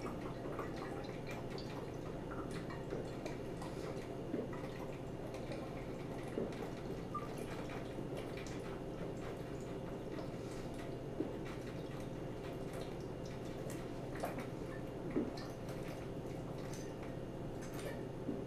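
Faint swallowing and glugging of liquid as a 750 ml glass bottle of fortified wine is chugged without a break, with a few separate gulps standing out over a steady low hum.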